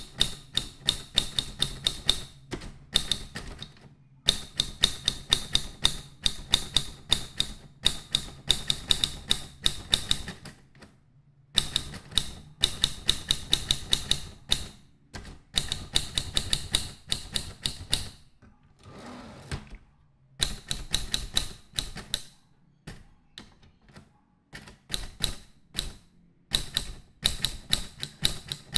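Typewriter keys being struck in quick runs of typing, rapid clacking broken by short pauses.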